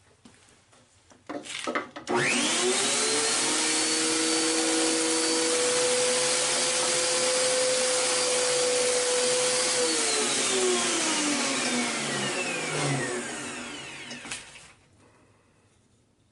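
Grizzly G0959 combo jointer/planer, with its 1.5 hp motor and helical cutterhead, after a couple of knocks: it is switched on, comes up to speed almost at once and runs at a steady pitch for about eight seconds. It is then switched off and winds down, its pitch falling, until it stops.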